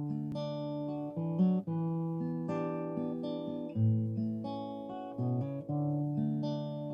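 Acoustic guitar playing the chord introduction of a folk song, plucked chords changing every second or so, each with a new bass note.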